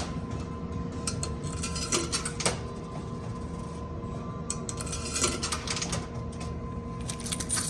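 Quarters dropping and clinking inside a coin pusher machine: scattered sharp metallic clicks over a steady hum.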